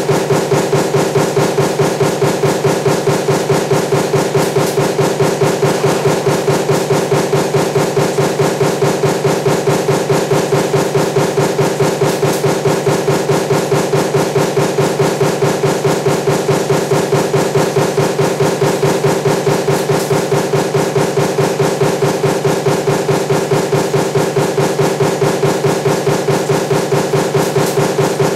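Power press running a die that stamps parts for a table fan motor, striking in a fast, even rhythm of about four to five strokes a second over a steady machine hum.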